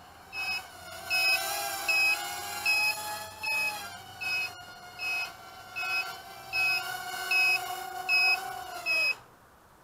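Whine of a micro quadcopter's Chaoli 8.5 mm coreless brushed motors and propellers in flight, with its low-voltage buzzer beeping about every three-quarters of a second: the battery is flat. Near the end the whine drops in pitch and stops, and the beeping stops with it, as the motors spin down.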